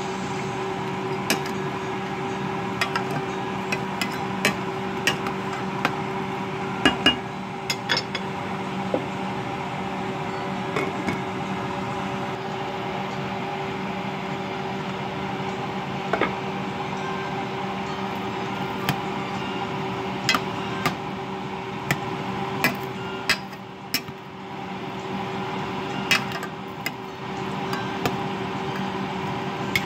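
A metal spoon stirring a thick chili mix in an enamel pot, clinking and knocking against the pot's rim and sides again and again, and the pot's lid being set on. A steady hum runs underneath.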